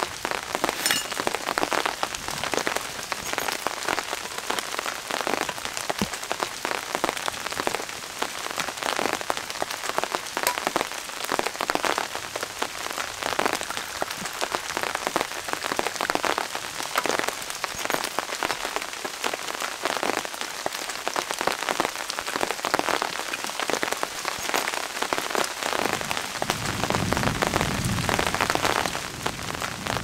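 Steady rain falling on forest leaves and a tarpaulin shelter, with many separate drops striking. A low rumble comes in near the end.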